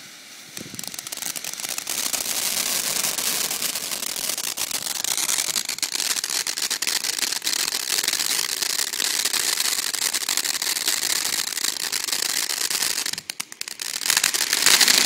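Consumer firework fountain (Big Fireworks' "Biggest Fountain") spewing sparks with a dense, steady hissing crackle that builds about half a second in. It drops away briefly near the end, then comes back louder.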